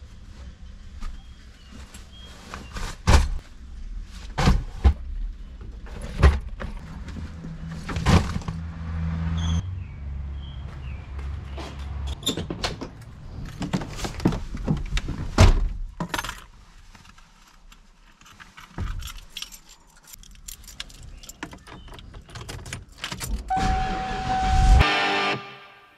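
Gear being loaded into a 1994 Ford Bronco: a string of sharp knocks and thumps from doors and cargo being handled, with keys jangling. Near the end a short steady electronic tone sounds, followed by a loud thump, and music starts at the very end.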